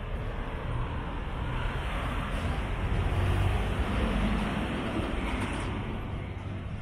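A motor vehicle passing on the street, growing louder to a peak about three to four seconds in and then fading away.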